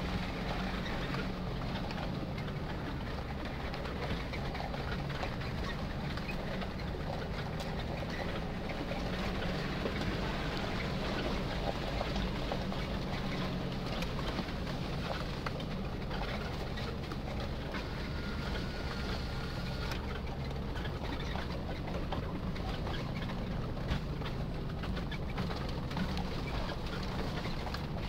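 Off-road vehicle's engine droning steadily at low speed, heard from inside the cabin, with scattered small clicks and knocks as it crawls up a rough, wet dirt track.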